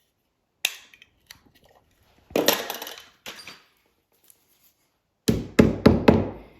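Wire cutters trimming glued toothpick ends flush with a wooden door jamb: a single snip, a scraping rub about a second long, then four sharp knocks in quick succession near the end.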